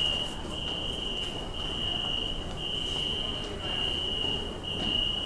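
Electronic alarm beeping in a subway station: one high-pitched tone in long beeps of about a second each, with very short gaps, repeating about once a second over the station's steady background noise.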